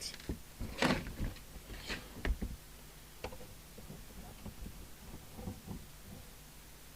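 A screwdriver taking the case screws out of a Midland 2001 CB radio: a few small clicks and knocks in the first couple of seconds, then fainter ticks, over a low steady hum.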